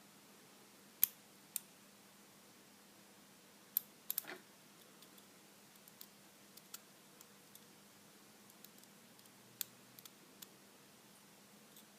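Small metal clicks and taps from a lock pick and tension wrench working the pins inside a Lockwood 334C45 padlock, irregular and sparse, with a louder cluster about four seconds in and another near ten seconds.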